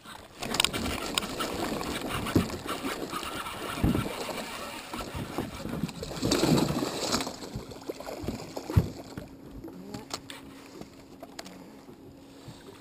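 A hooked muskie splashing and thrashing at the surface as it is fought to the boat, the splashing loudest about six and a half seconds in. Scattered knocks come from the boat and the rod.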